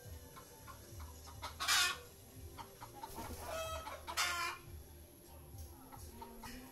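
Chickens clucking, with two short loud calls about two seconds and four seconds in.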